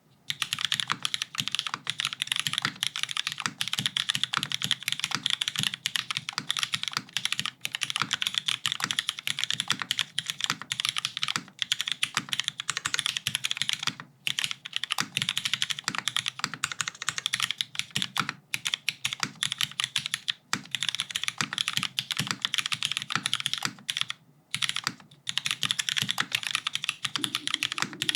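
Fast, continuous typing on an ANKA 60XT custom mechanical keyboard with Hyperglide Cherry MX Black linear switches in a full aluminium plate, top mount, with GMK keycaps: a dense run of keystroke clacks, broken by a few brief pauses.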